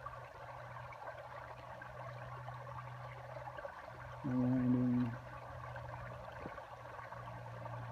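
Small stream running over rocks below a little waterfall: a steady rush of water.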